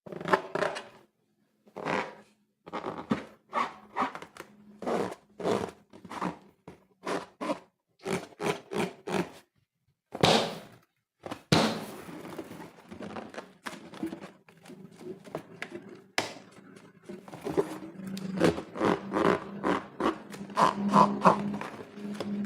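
Slime being squeezed and pressed by hand in a run of short wet squelches. A steady low hum joins about halfway through.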